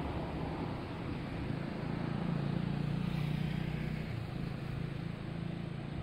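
A low engine hum that swells about two seconds in and eases off after four, over a steady rushing background noise.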